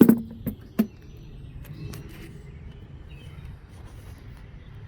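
Three sharp metallic knocks in the first second, the first the loudest with a brief ring, as parts or tools are handled on the motorcycle, followed by steady outdoor background with faint birdsong.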